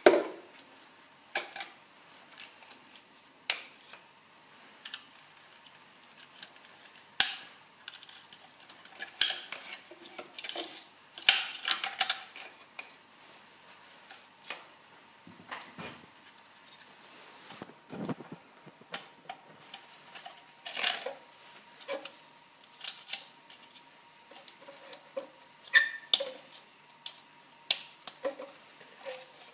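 Irregular clicks and metallic clinks of a hand tool and parts being handled on a VW 1.4 16-valve engine's top end as the ignition coils come off, with a few louder knocks among them.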